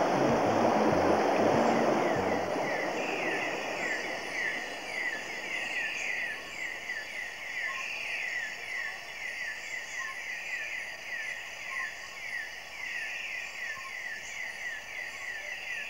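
Rushing river water that fades away over the first two or three seconds, giving way to tropical rainforest ambience: a steady chorus of birds or insects with a long run of short falling chirps repeating several times a second.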